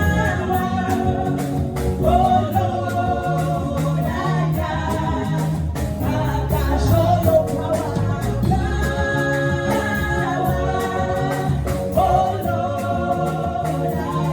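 Gospel music with singing over a steady beat and bass.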